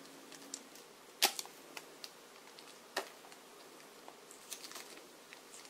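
Small hard-plastic clicks and taps as hands work the head and hair parts of a Nendoroid figure: a sharp click about a second in, another about three seconds in, and a few lighter clicks near the end.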